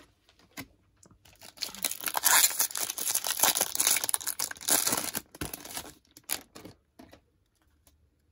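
Wrapper of a Topps baseball card pack being torn open and crinkled, a dense crackling rustle lasting about four seconds, followed by a few light clicks.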